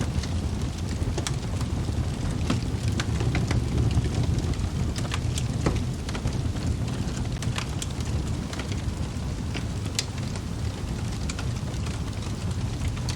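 Wood fire in a fireplace crackling, with sharp irregular pops over a steady low rumble of the burning logs.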